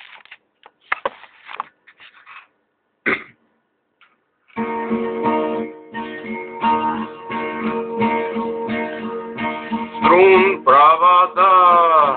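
A few scattered clicks and taps, then a guitar starts strumming chords about four and a half seconds in. A male voice begins singing over it near the end.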